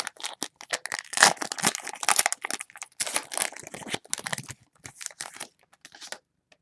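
Wrapper of a football trading-card pack crinkling and tearing as it is ripped open, a run of irregular crackles that stops about six seconds in.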